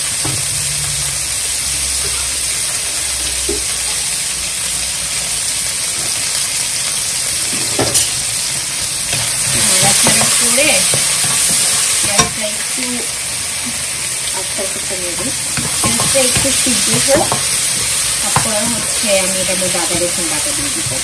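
Chopped red onions sizzling in very hot oil in a ceramic-coated wok. From about eight seconds in, a wooden spatula stirs and scrapes them around the pan, with a couple of sharp knocks against it and the sizzle swelling as it stirs.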